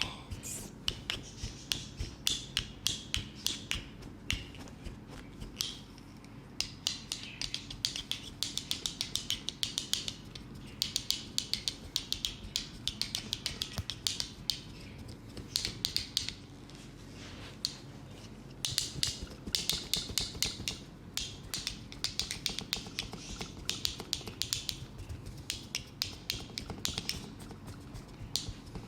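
Quick runs of sharp snaps and slaps from hands working in a massage, several a second, with a soft rubbing hiss between the runs.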